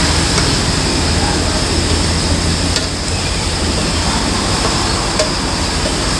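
Loud, steady mechanical drone with a low hum, with two light clicks of a metal spoon working ingredients off a plate into a blender jar.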